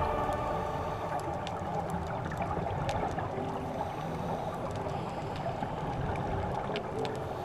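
Underwater ambience through a camera's waterproof housing: a steady muffled rush of water with scattered sharp clicks.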